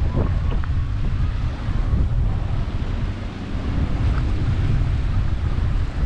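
Wind buffeting the microphone: a loud, fluttering low rumble throughout.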